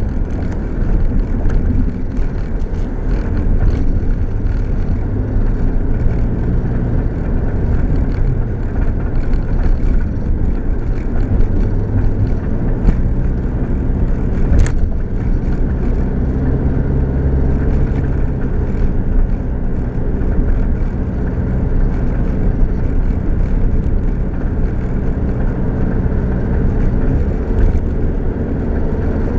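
Inside the cab of a 2007 GMC Canyon pickup on the move: steady engine drone and road rumble. A single sharp click sounds about halfway through.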